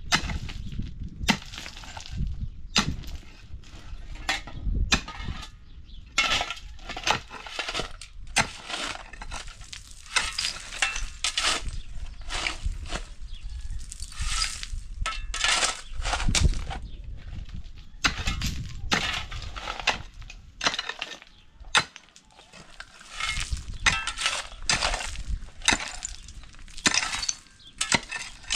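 Hand tools digging into stony ground: irregular strikes again and again, with stones clinking and grinding as they are loosened and shifted.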